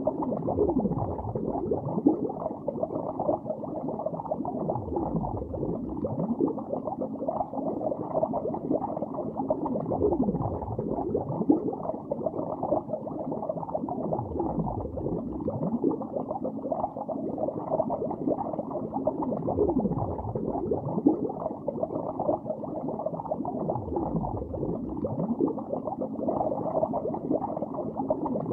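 Underwater bubbling: a continuous, muffled stream of small bubble sounds rising and falling in pitch, swelling every four to five seconds.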